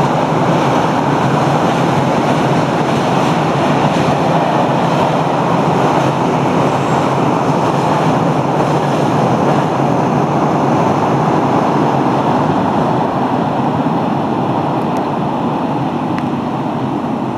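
Steady, loud rushing of a river in flood, easing slightly near the end.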